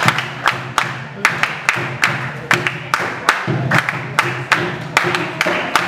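Capoeira roda music: the circle of players clapping a steady beat, about two and a half claps a second, with voices and percussion underneath.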